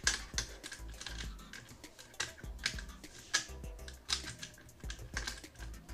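Background music, with irregular light metallic clicks and taps from an L-key turning the chain tensioner screw on a chainsaw adapter fitted to an angle grinder, as the chain is tightened.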